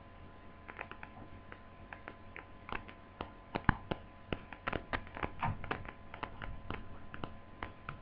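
Light, irregular clicks and taps of small plastic laptop parts being handled as the touchpad mouse-button assembly is fitted, sparse at first and coming a few a second from about three seconds in, with one sharper click near the middle.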